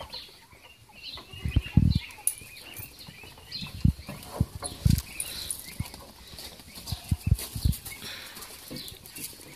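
Irregular low thumps and scuffing from a goat's hooves and a person's footsteps as the goat is led out of a shed on a leash.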